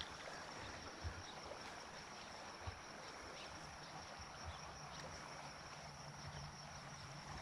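Faint steady insect chirring, a thin high unbroken tone, over a soft even hiss, with a few light ticks and low thumps.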